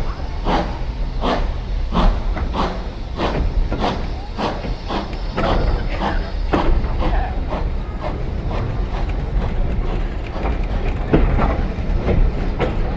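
A train running on jointed rails, its wheels clicking over the rail joints in a regular clickety-clack of about one and a half beats a second over a low steady rumble.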